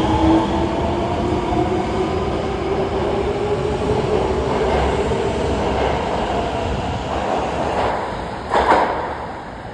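Osaka Metro 22 series subway train pulling out of the station: its motors give a whine of several tones that rises in pitch as it speeds up, over wheel and track rumble, then fades as it leaves. A brief loud burst comes about a second before the end.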